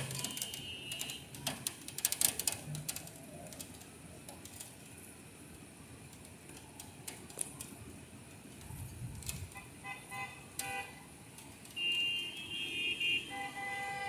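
Car horns honking from the street below: short blasts about ten seconds in, then longer, louder blasts near the end. Scattered sharp ticks come in the first few seconds.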